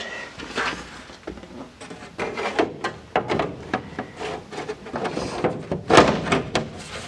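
Radiator duct lid panel being handled and worked into place, a run of irregular clattering knocks and rattles.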